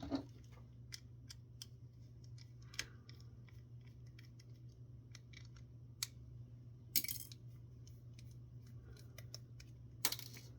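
Scattered light clicks and taps of small plastic parts being handled while a camera's motor and gear assembly is taken apart, with a brief scrape about seven seconds in, over a steady low hum.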